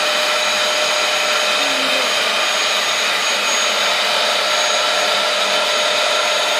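Bagless cylinder vacuum cleaner running steadily: a constant rush of air with a steady motor whine over it.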